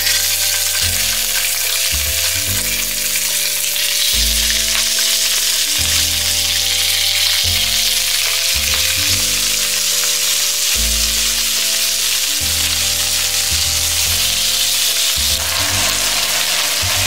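Small whole fish sizzling steadily as they pan-fry in hot oil in a nonstick frying pan, over background music with a bass line.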